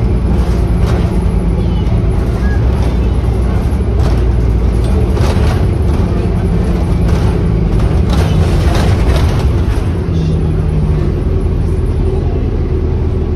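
Cabin noise inside an Orion hybrid-electric city bus underway: a steady low drivetrain hum whose pitch shifts about ten seconds in, with repeated rattles and knocks from the body, thickest in the middle.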